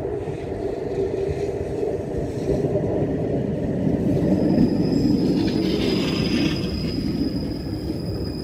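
71-911EM 'Lvyonok' low-floor tram approaching on the track and passing close by, its wheels and running gear rumbling louder as it goes past. A steady high whine comes in about halfway through.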